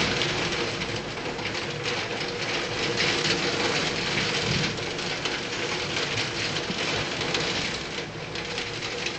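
Heavy rain pouring down onto the street and pavement: a steady, dense hiss of falling water.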